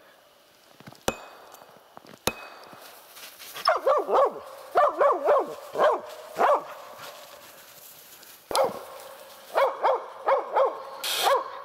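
Hunting laika barking in quick runs of two to four barks, baying at a pine marten up a birch tree. Two sharp knocks come first, about one and two seconds in.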